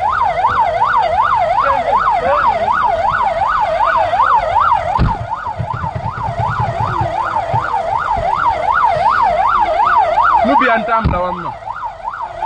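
Vehicle siren sounding in a fast yelp, its pitch sweeping up and down about three times a second without a break, with a dull thump about five seconds in and another near the end.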